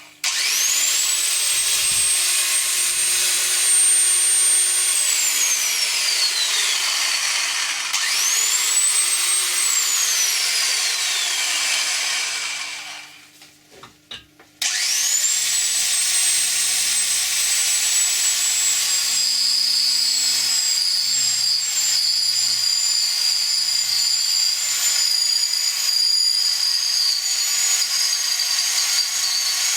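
Vintage Thor electric drill's motor running with a high whine. It spins up, runs, and is switched off to wind down, then gets a second short burst, and about fifteen seconds in it starts again and runs steadily to the end.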